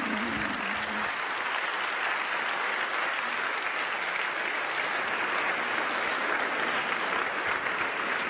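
Audience applauding steadily, a dense even clapping from a large crowd. A man's voice sounds briefly under it in the first second.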